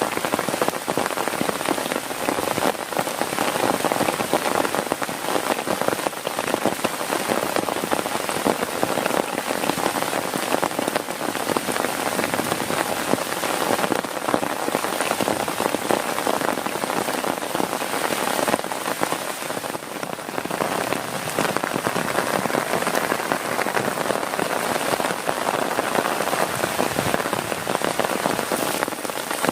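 Heavy rain falling on a tent, a dense steady patter of countless drops.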